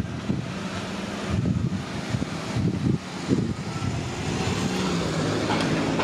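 Low rumble of vehicles at a railway level crossing, with irregular low knocks and a steady engine tone building in the last couple of seconds as the barrier lifts.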